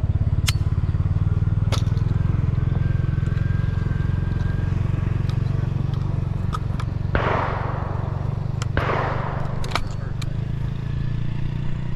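An engine running steadily at idle, its low rumble continuous throughout. A few sharp clicks and two short rushing noises are heard over it, a little past the middle.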